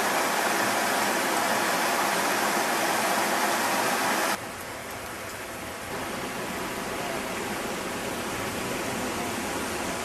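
Steady rush of water from a waterfall, a hiss-like roar across the whole range. About four seconds in it suddenly drops in level and carries on quieter.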